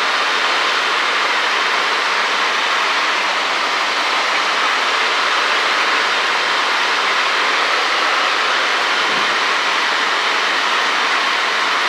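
Cessna 152 cockpit noise in cruise: the engine and the rushing airflow blend into a steady, even hiss with no distinct engine note.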